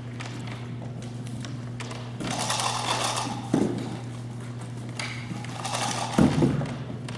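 Two thumps about three seconds apart, each led in by a second or so of rustling, over a steady low hum.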